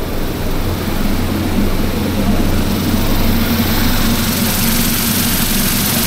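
A steady low mechanical hum with a rushing noise over it, growing a little louder about a second in and then holding steady.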